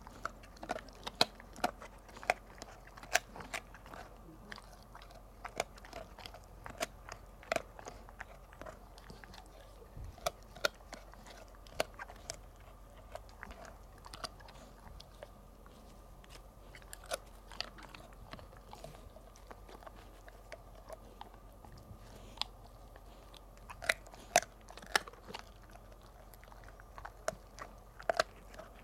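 Golden retriever chewing a dried pig ear: irregular sharp crunches and cracks coming in clusters, with a quieter spell about two-thirds of the way through.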